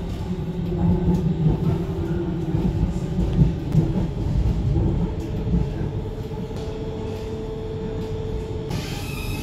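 Metro train running along its track, heard from inside the carriage: a steady low rumble of wheels on rails, with a motor whine holding one tone through the middle and a brighter hiss coming in near the end.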